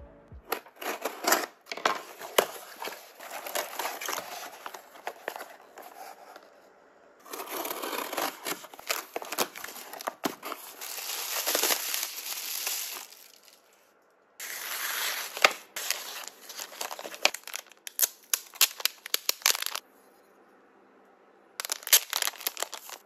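Plastic packaging crinkling, rustling and tearing as parcels are unwrapped by hand, including a clear plastic bag pulled off a wooden spatula. It comes in bursts of dense crackle with short pauses between them.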